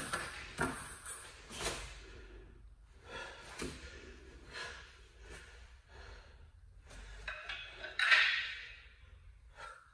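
Wooden tonfa swung through a kata, with short swishes and cloth snaps from the gi in the first two seconds and softer rustles of movement after. A forceful breathy exhale about eight seconds in is the loudest sound.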